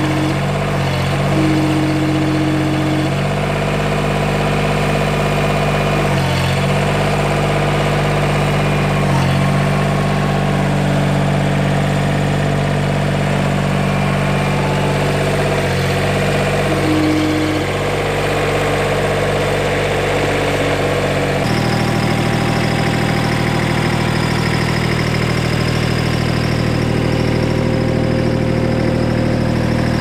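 Gehl 1620 mini skid steer's diesel engine running steadily. A short higher whine sounds twice near the start and once about halfway through, and the engine note shifts about two-thirds of the way through.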